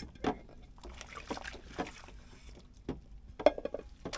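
Dishes being washed by hand in a stainless steel sink of soapy water: water sloshing and splashing, with irregular knocks of dishes against each other and the sink, the loudest about three and a half seconds in.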